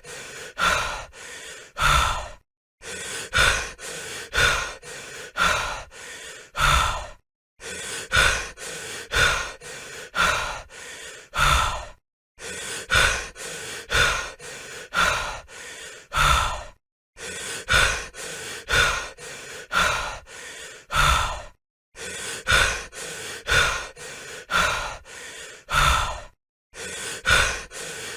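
A person breathing heavily, quick in-and-out breaths about twice a second, in runs of about four and a half seconds broken by short silences.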